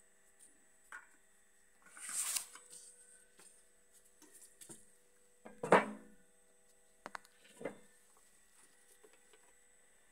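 Things being handled on a workbench: a short rustle about two seconds in, a loud knock near the middle, then a few lighter clicks and knocks.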